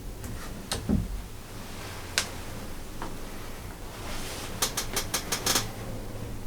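Quiet handling of a hunting rifle: a few separate sharp clicks, then a quick run of about six clicks about four and a half seconds in, over a low steady hum.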